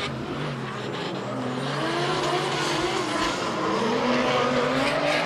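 Two drift cars, a Nissan Silvia chasing a Mercedes-Benz 200 D, sliding in tandem: engines revving with a wavering pitch over tyres screeching, growing slowly louder.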